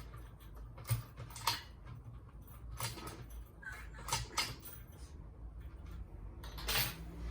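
A handful of separate sharp clicks and knocks from a gate smart lock's metal hardware being worked by hand to test it, over a steady low hum.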